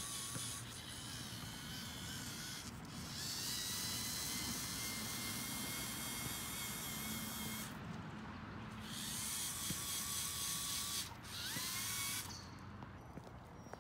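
Lego EV3 Mindstorms race car's electric motors whining as it drives, with a high hiss from the drivetrain. The whine cuts out briefly twice and rises in pitch each time it starts again, then stops about twelve seconds in.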